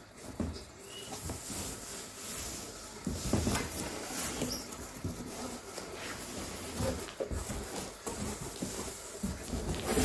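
Large cardboard mattress box being handled and opened: flaps and outer plastic wrap rustling and scraping, with scattered knocks, the loudest about three seconds in.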